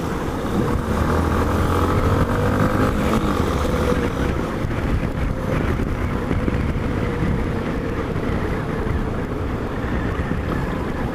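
Yamaha Ténéré motorcycle engine running steadily at riding speed, with wind buffeting the side-mounted camera's microphone. The engine pitch rises slightly a couple of seconds in.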